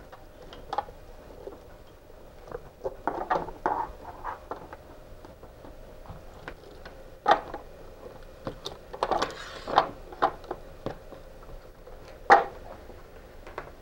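Scattered soft rustles and clicks of a cable being handled and pulled against the trolling motor's plastic head and coiled cord, with a few sharper taps about seven, ten and twelve seconds in.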